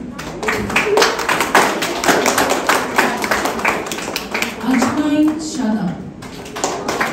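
Audience clapping in a dense, irregular patter, with voices talking over it; a single voice rises and falls briefly about five seconds in.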